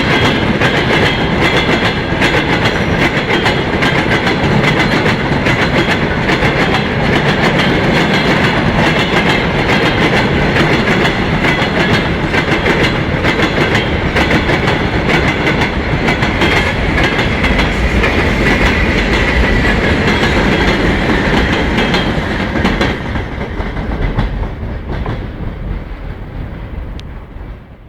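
Freight train wagons rolling past, their wheels clattering over the rail joints in a dense, steady clickety-clack. The sound dies away over the last few seconds as the end of the train goes by.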